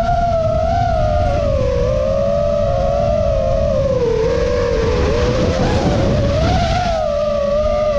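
FPV freestyle quadcopter's Xing brushless motors and Gemfan props whining as it flies, the pitch wavering up and down with throttle over a steady rush of air. About five seconds in, the whine dips and turns rough for a couple of seconds before steadying again.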